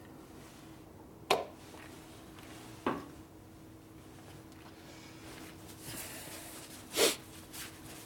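A few short knocks and clinks of metal motorcycle clutch parts being handled and set down on a workbench, over a steady low hum.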